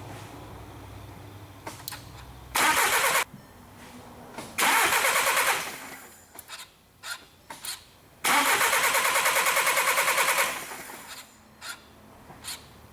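Starter cranking the 2011 VW Jetta's 2.0 TDI diesel engine in three attempts, short, longer, then about two seconds, with a steady pulsing rhythm each time; the engine does not catch, typical of this no-start with low fuel pressure codes.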